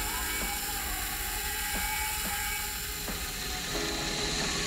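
Benchtop milling machine running, its end mill cutting a slot in metal bar stock: a steady whine with a few faint ticks and short squeals from the cut.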